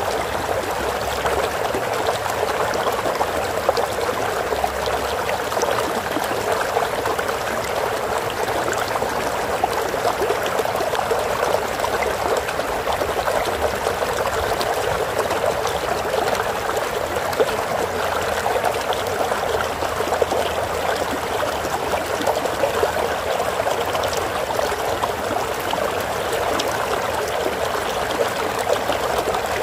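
Stream of running water, a steady babbling and trickling flow.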